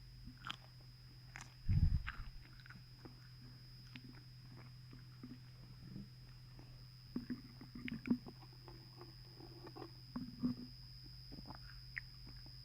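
Close-miked eating: biting into and chewing fast food, with scattered small crunches and wet clicks. A loud low thump comes about two seconds in.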